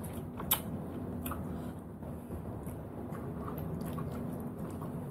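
Close-up mouth sounds of chewing snail meat, with a few sharp clicks; the loudest click comes about half a second in.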